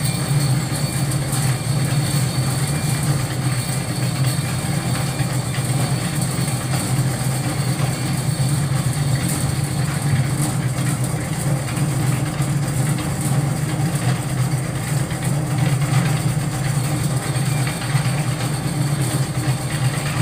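Portable drum concrete mixer (molen) running with a steady, unbroken low drone.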